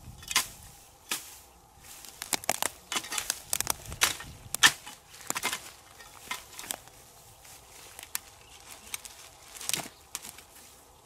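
A long blade chopping and jabbing into dry grass and twigs on the ground: irregular crunching, snapping strikes, thickest in the first half, with the loudest about four and a half seconds in and a last one near ten seconds.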